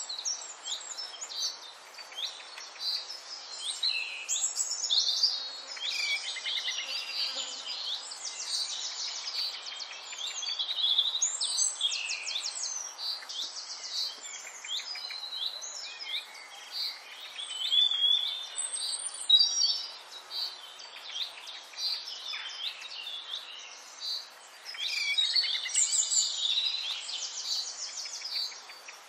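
Birds chirping and singing: a busy, unbroken run of short chirps and rapid trills, over a faint steady hiss.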